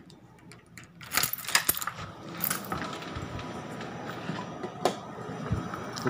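Keys jangling with a run of small metallic clicks about a second in, then another sharp click near the five-second mark. A faint steady high tone comes in partway through.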